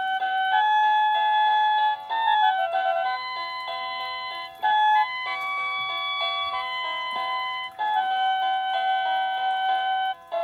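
Bestrix wireless doorbell receiver playing its electronic chime tunes through its small speaker: simple beeping melodies of clear single notes, breaking off briefly every two to three seconds.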